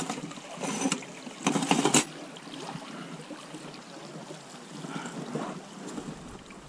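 Shallow river water trickling and running over stones around an inflatable boat, with a sharp knock at the start and two short bouts of knocking and rubbing from the boat and its gear within the first two seconds.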